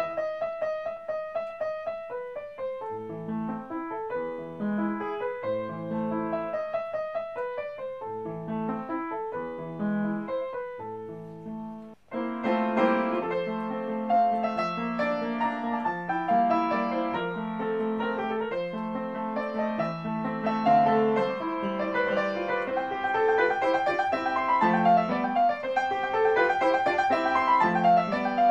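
Background piano music playing notes over a lower bass line. There is a brief break about twelve seconds in, after which it comes back fuller and busier.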